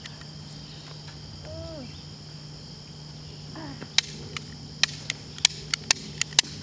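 Toy cap-gun revolver clicking: about nine sharp, irregular clicks over the last two and a half seconds, over a steady high insect drone.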